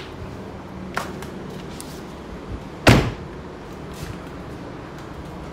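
Driver's door of a 2018 Jaguar XF: the latch clicks open about a second in, then the door is shut with one solid slam just before the three-second mark.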